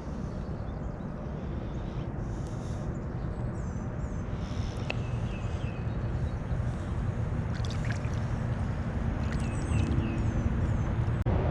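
Small birds chirping in short, repeated calls over a steady low rumble that grows louder near the end.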